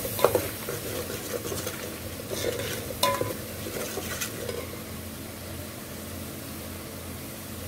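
Metal ladle stirring masala in an aluminium pot, scraping and knocking against the pot a few times, one knock ringing briefly, over a steady sizzle of the masala frying in oil. The stirring stops about halfway through, leaving only the sizzle.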